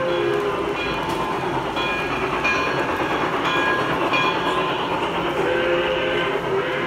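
Model steam locomotive pulling freight cars along the layout's track: a steady running noise, with short high tones over it several times.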